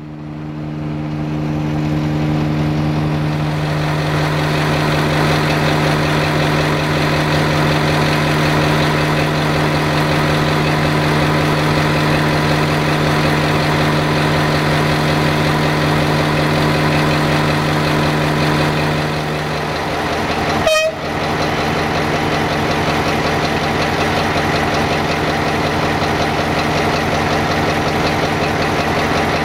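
Diesel railway engine idling steadily, with a constant low hum. A brief sharp click about twenty seconds in.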